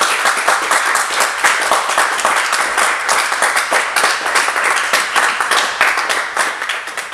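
Audience applauding: many hands clapping at once, starting to die down near the end.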